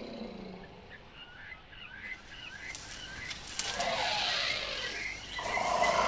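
Harsh wild animal calls, louder toward the end, with a few small bird chirps a couple of seconds in.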